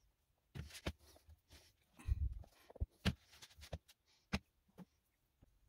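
Handling noises from a pair of resoled Birkenstock clogs being turned over and set down on a workbench mat: a series of soft knocks and taps, the loudest a dull thump about two seconds in.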